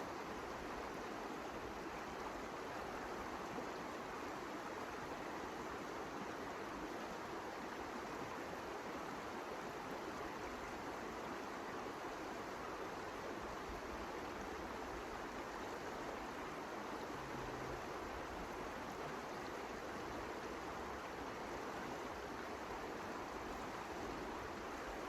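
Steady blizzard wind: an even rushing noise with no distinct gusts, knocks or crackles.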